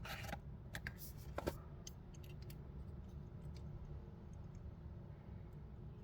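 Hands handling the plastic and card packaging of a die-cast toy car, with a quick run of small clicks and scrapes in the first two seconds and a few faint ticks after, over a steady low hum.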